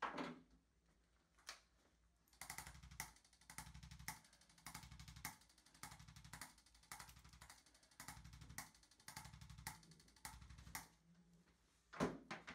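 Chiropractic adjusting instrument firing against the spine and joints: sharp clicks repeated about two a second, each with a short low thud, easing off near the end.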